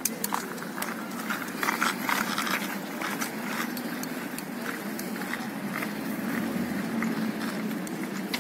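A child's small plastic three-wheeled kick scooter rolling and rattling over asphalt, busiest in the first few seconds, over a steady rumble of distant traffic.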